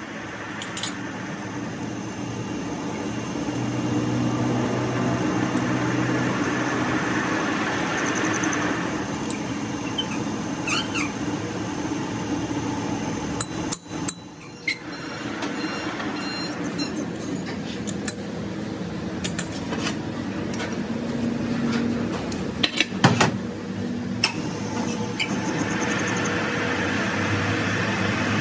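Metal lathe running with a truck drop spindle spinning in its chuck, coming up to speed, then coasting to a stop about halfway through. Metallic clinks and a few knocks follow while the part sits still, then the lathe starts and runs up to speed again near the end.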